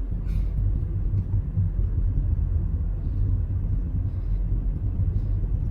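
Steady low rumble of a car on the move: road and wind noise, with a few faint ticks.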